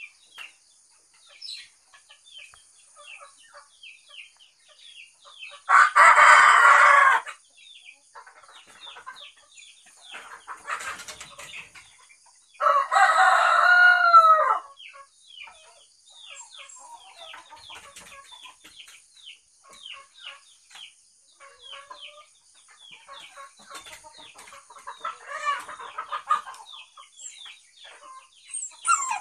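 Rooster crowing: two loud crows about six and thirteen seconds in, each lasting one to two seconds, and a fainter crow near the end. Small birds chirp throughout over a steady high-pitched hum.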